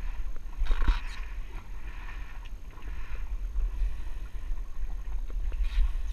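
Wind rumbling on the microphone over water sloshing against the jet ski's hull, with a brief splash about a second in as the hooked fish thrashes at the surface.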